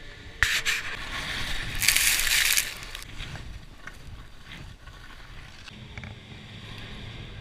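Skis scraping and carving over packed snow, a rushing hiss that comes in suddenly and is loudest about two seconds in, then quieter with a few faint clicks.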